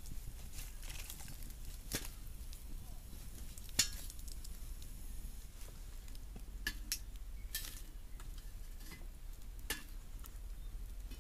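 A few light clicks and knocks at irregular intervals, the sharpest one about four seconds in, over a faint steady low background.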